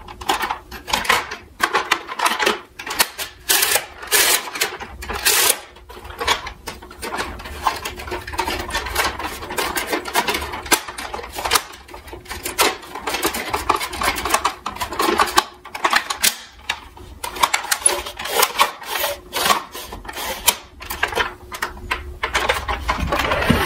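Plastic toy fire truck handled in a cardboard box: irregular clicks, knocks and rubbing of hard plastic parts as the ladder is moved, with rustling of packing in between.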